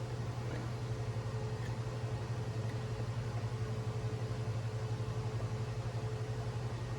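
Steady low mechanical hum with a faint steady whine above it and even hiss, running unchanged throughout.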